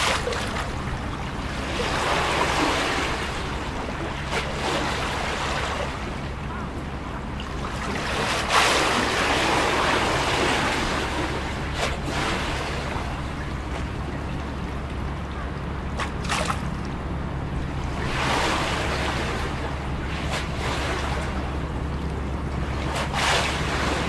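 Small harbour waves washing and lapping against a concrete quay wall, swelling every few seconds with the odd short slap of water, over a steady low hum.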